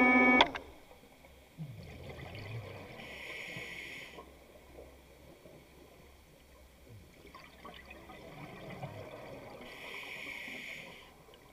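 Scuba diver breathing through a regulator underwater: low bubbling as the air is breathed out, then a steady hiss as air is drawn in, twice, about three seconds in and again near the end.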